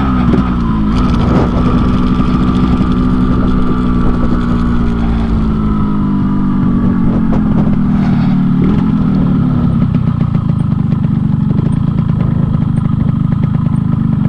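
Yamaha RX-King 135 single-cylinder two-stroke engine running under way, its note dropping in pitch at the start as the throttle eases, then holding fairly steady with slow gentle rises and falls. The bike is set up Medan style, tuned for a deep 'ngorok' (snoring) exhaust rumble.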